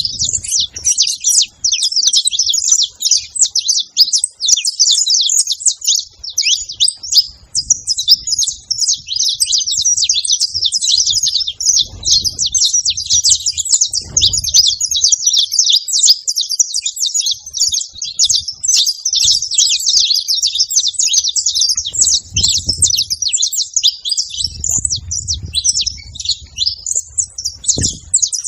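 A flock of saffron finches chirping and singing all at once, a dense, continuous overlapping twitter with no break.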